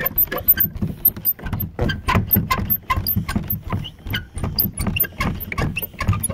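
Handling noise: rapid, irregular clicks and rustles of a hand gripping and shifting the phone right at its microphone.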